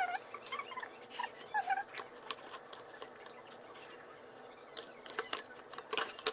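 Homemade glue-and-detergent slime being squeezed and kneaded by hand: wet sticky clicks and pops throughout, with short squeaks in the first couple of seconds.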